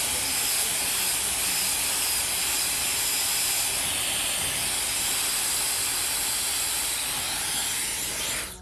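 Handheld hair dryer with a concentrator nozzle blowing steadily as hair is dried over a round brush; it stops suddenly near the end.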